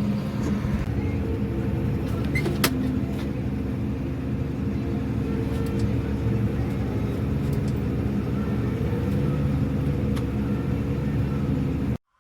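A motor running with a steady hum, with a few sharp clicks over it; it cuts off abruptly near the end.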